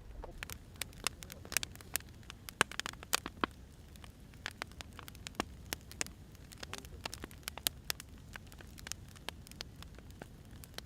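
Wood fire crackling: sharp, irregular pops and snaps over a low steady rumble, thicker in the first few seconds and sparser after.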